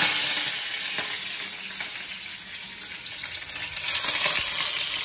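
Tempering spices (mustard seeds, fennel, dried red chillies) and fresh curry leaves sizzling in hot oil in a wok. The sizzle is loudest at the very start as the leaves hit the oil, eases, and swells again about four seconds in.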